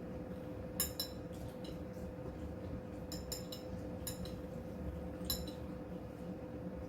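Eating utensils clinking against plates and bowls: a few short, ringing clinks about a second in, a cluster between three and four seconds, and another past five seconds, over a steady low hum.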